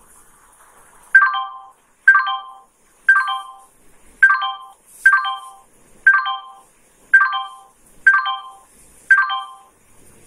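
A short electronic chime of several tones plays nine times, about once a second, each sharp at the start and fading quickly. It is a quiz program's answer sound, one chime for each answer shown.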